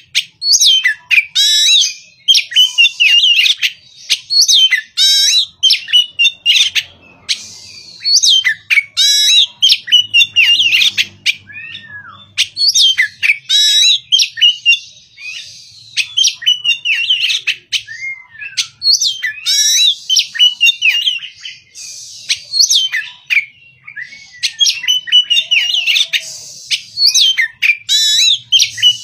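Oriental magpie-robin singing loudly in rapid, varied phrases of whistles, chirps and sweeping notes, each phrase a second or two long with short pauses between.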